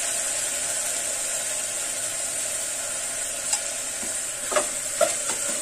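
Onion, tomato and spice masala sizzling steadily in hot oil in a pressure cooker, with a few light knocks about three and a half to five seconds in.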